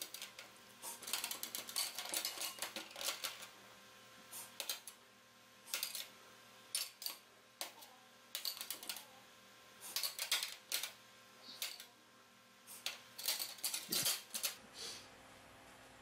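Small aluminium baking tins clinking and knocking against a metal tray and against one another as they are greased with a brush and oil: irregular clusters of light metallic clicks with short pauses between them.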